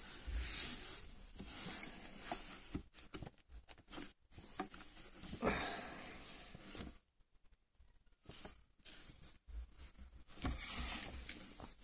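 Faint handling noise: gloved hands turning and rubbing a model car's packaging box, with scattered short scrapes and light clicks.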